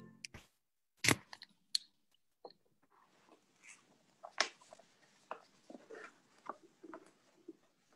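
Handling noise close to the microphone: scattered sharp clicks and knocks with soft rustling, the loudest knock about a second in.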